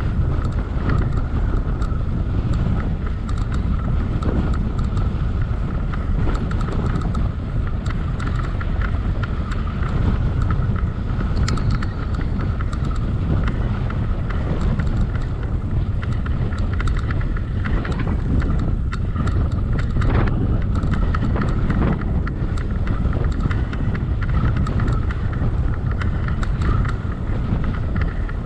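Wind buffeting the microphone during a bicycle ride: a steady low rumble, with a faint steady hum from the bike and occasional small clicks and rattles.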